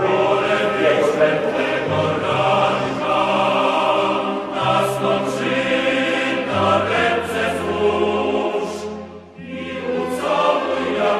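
A choir singing a slow song in long held notes over a steady low accompaniment. The music drops away briefly about nine seconds in, then comes back.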